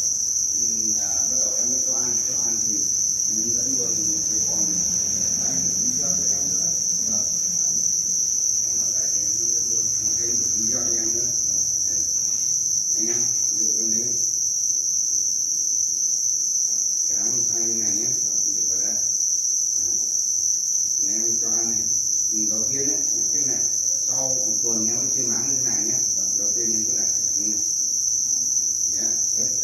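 Dense, continuous chorus of many farmed Thai black crickets chirping, a steady high-pitched ringing that never lets up, with faint voices talking underneath.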